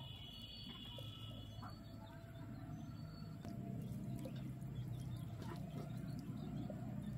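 A wet net rope is drawn out of shallow water by hand and coiled, giving faint dripping and trickling, with birds calling in the background. Under it runs a steady low rumble that grows a little louder about halfway through.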